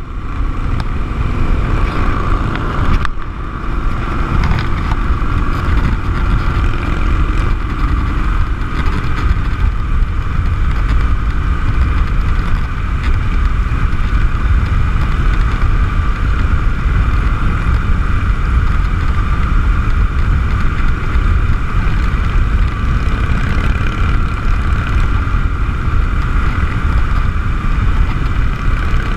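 Harley-Davidson V-twin cruiser at highway speed, heard from the rider's position: heavy wind rush on the microphone over the engine's steady drone. There is a brief lull about three seconds in.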